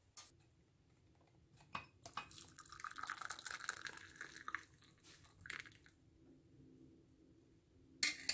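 Liquid being poured for about two and a half seconds, with a short trickle afterwards. A few light knocks come before it, and a sharp clink near the end is the loudest sound.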